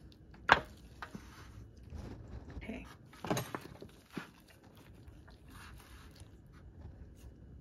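Disposable aluminium foil pan crinkling and knocking as raw chicken drumsticks are handled and laid in it with gloved hands: a few short, sharp crinkles, the loudest about three seconds in.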